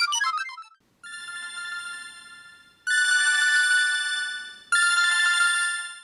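Sony Ericsson T610 polyphonic ringtones: a fast run of short melodic notes ends under a second in, and after a brief gap a different ringtone begins with three long held synth chords. The first chord is softer with a wavering tone, the next two come in louder about two seconds apart, and the last fades out near the end.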